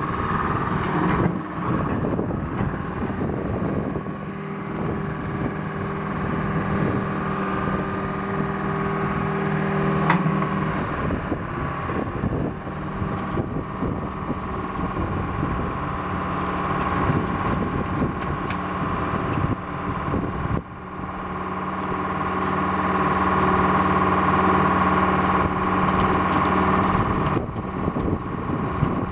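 Hein-Werner C12HD crawler excavator's engine running under load while the machine works its hydraulics and moves on its steel tracks, with scattered knocks and clanks. The engine note dips briefly about twenty seconds in, then comes back stronger for several seconds.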